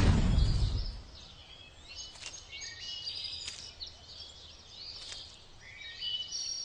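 Birds chirping in short, high, gliding calls over a faint background hiss, following a loud rush of noise in the first second that fades away.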